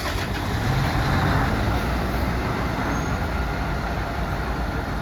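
Fire truck engine running, a steady low rumble that swells slightly about a second in.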